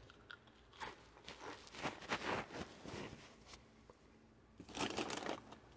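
Faint, irregular bursts of crunching and rustling from someone eating crunchy cheese snacks out of a bag, the loudest burst about five seconds in.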